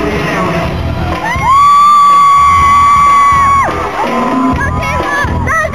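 Live pop concert music in a large hall with the audience cheering. About a second in, one loud high cry rises, is held for a little over two seconds and then drops away. Shorter rising whoops come near the end.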